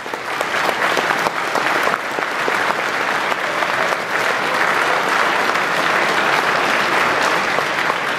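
Audience applauding: many people clapping steadily in a large hall.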